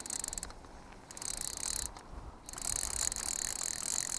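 Fly reel's ratchet check clicking rapidly as line is wound in on a hooked trout. It comes in three spells with two short pauses.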